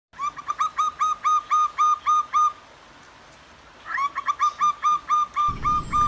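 Zebra dove (perkutut) cooing: a run of quick, evenly spaced notes, about four a second, then after a short pause a second run the same way.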